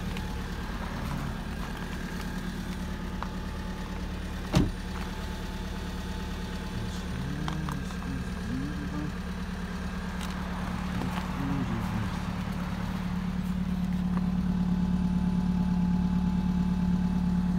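Volkswagen Golf 6 2.0 TDI four-cylinder diesel idling steadily shortly after a cold start at minus 9 °C. A car door shuts with a single sharp knock about four and a half seconds in. The idle grows louder near the end, heard close at the twin tailpipes.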